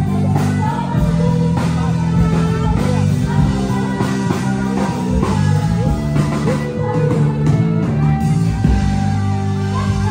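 Loud rock music with singing, playing without a break.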